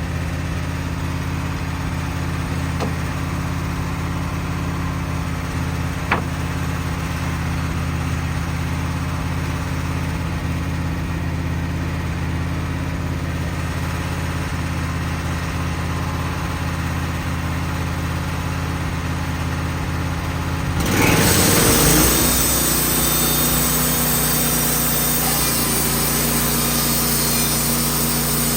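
Wood-Mizer portable band sawmill running steadily at a constant engine note. About three quarters of the way through, the sound changes: a loud hiss spreads across the high end, the engine note shifts and the mill gets louder.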